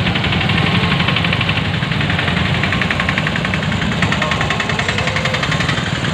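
A motor vehicle engine idling close by with a rapid, even chugging, over the running of other vehicles creeping past in slow traffic.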